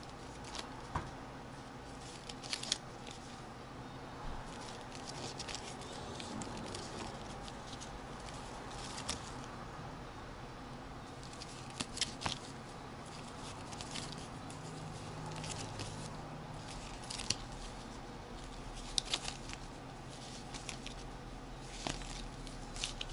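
Paper game tickets being leafed through and shuffled by hand: scattered light rustles and crinkles over a faint steady room hum.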